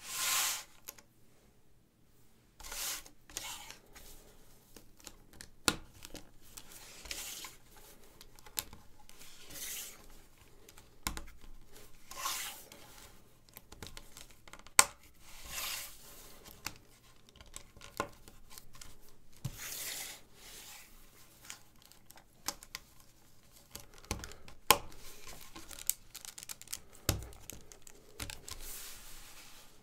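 LEGO 1x6 plates being handled and snapped together: sharp plastic clicks at irregular intervals, mixed with short scraping rustles as the plates slide against each other.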